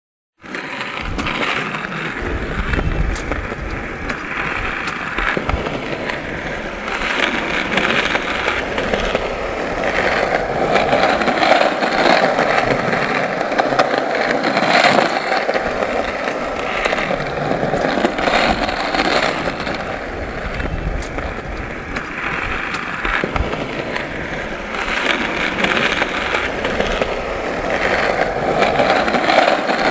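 Skateboard wheels rolling: a continuous rolling noise that swells and eases, with a few short sharp clacks.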